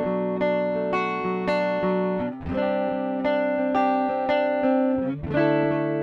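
Ibanez GRGR121M electric guitar played clean on its neck pickup. Picked chord arpeggios let the notes ring into one another, with the chord changing twice, about two and a half seconds in and again near five seconds.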